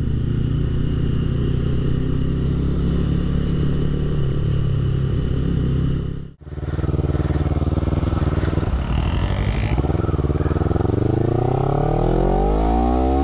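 Motorcycle engine running steadily at low speed with wind noise. Then, after a cut, a Honda CBR250RR's parallel-twin engine through an Akrapovic aftermarket exhaust accelerates, its pitch rising steadily over the last few seconds.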